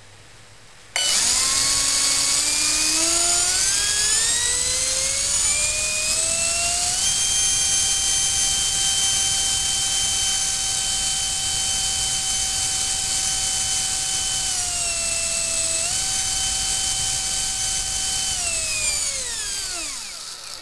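Electric ducted fan, a shortened Wemotec fan driven by a HET brushless motor, running up on a thrust-test stand. It starts suddenly with a whine that rises steadily for about six seconds over a loud rush of air, then holds at full throttle. It dips briefly and comes back, then winds down and stops near the end.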